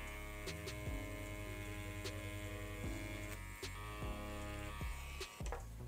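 BRONC Magic wireless rotary tattoo pen running with a steady electric buzz as it works lines into silicone practice skin, its hum shifting a little every second or so, with faint clicks.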